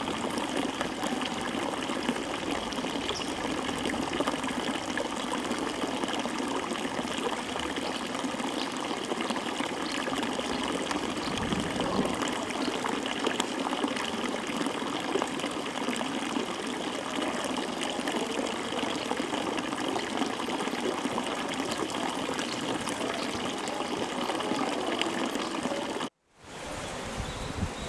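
Steady rain with trickling, running water. Near the end it cuts out for a moment and comes back a little quieter.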